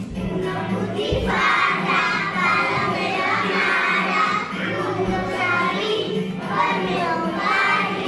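A group of young children singing a song together over recorded backing music.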